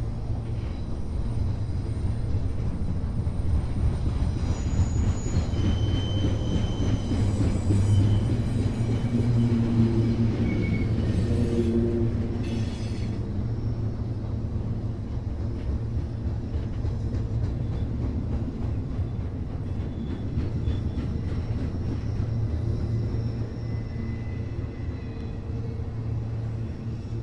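Double-stack intermodal freight train rolling past: a steady rumble of steel wheels on the rails. Short high-pitched wheel squeals come through now and then in the first half.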